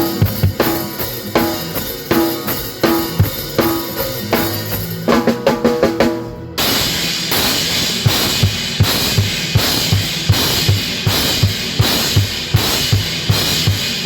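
Live gospel band playing: a drum kit with bass drum, snare and rimshots driving the beat under keyboards and bass guitar. About five seconds in the drums play a quick run of hits, then the cymbals open up into a bright wash over a steady kick pattern.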